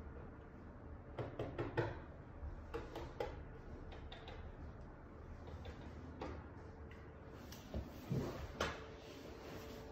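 A motorized roller shade lowering, its motor giving a faint steady hum. Light clicks and knocks are scattered through it, with the loudest clusters about a second and a half in and again about eight seconds in.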